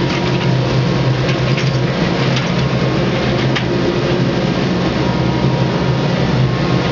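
A boat's engine running with a steady low drone while water rushes and splashes between its hull and a ship's hull alongside.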